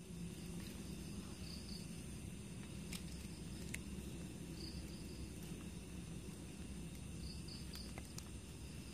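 Night crickets trilling steadily over a low, even rush, with a few sharp crackles from the campfire's wood embers.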